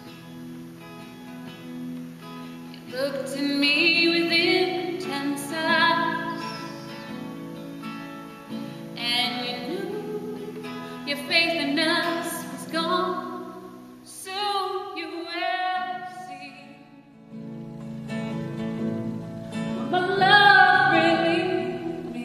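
Music: a singing voice with guitar accompaniment, the sung phrases rising and falling in loudness, with a brief lull a little past the middle.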